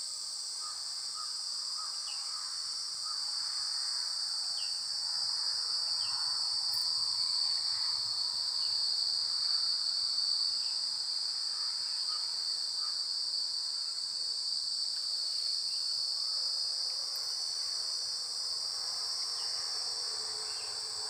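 Steady, high-pitched drone of insects in the field and trees, unbroken throughout, with short faint chirps now and then.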